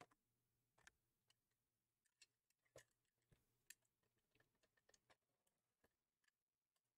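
Near silence, broken by faint, irregular clicks and taps as a cardboard trading-card blaster box is picked up and turned over in the hands.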